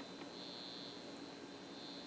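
Circuit tracer receiver's audible indicator giving a faint, steady high-pitched tone that swells louder twice, as it picks up the tracer's noise signal on the power cord.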